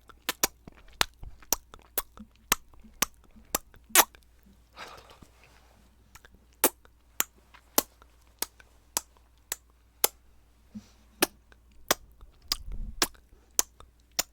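Sharp, close-up clicks in a steady rhythm, about two a second, made as ASMR triggers.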